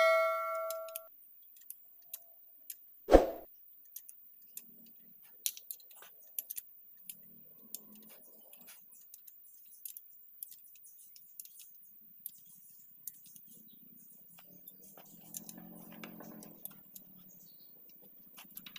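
Steel hand tools clinking against an engine's timing gears and bolts. A ringing metal clang dies away in the first second, a sharp clank comes about three seconds in, and light scattered metal clicks and taps follow.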